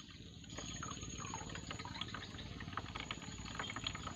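Water splashing and trickling in a run of small, quick crackles, with a steady high-pitched tone throughout.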